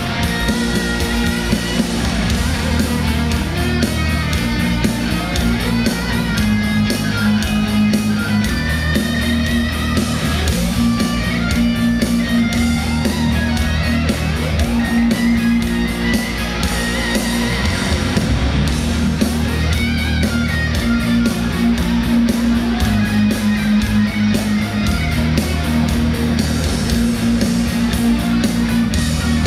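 Heavy metal band playing live, loud and continuous: a lead electric guitar line with bends over distorted rhythm guitars, bass and steady drums, with no singing.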